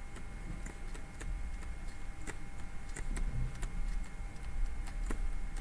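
Light, irregular taps and scratches of a stylus writing by hand on a drawing tablet, over a steady low electrical hum.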